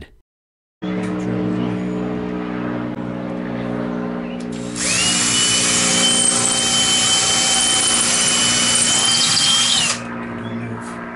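Cordless drill drilling a hole through a plastic wall rail into a stud. The motor runs with a steady whine from about a second in. About five seconds in it gets much louder and higher-pitched as the bit cuts, then eases off near the end.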